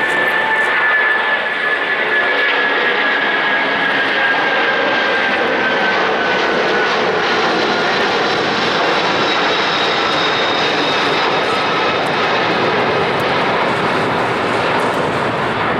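Boeing 747-400's four Rolls-Royce RB211 turbofans climbing away after takeoff: a steady, loud jet roar with a whine that slowly falls in pitch as the jumbo recedes.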